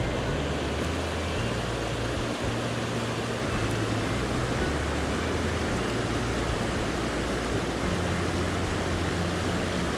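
Steady rush of a swollen mountain stream running high after rain, with low sustained tones underneath that shift every second or two.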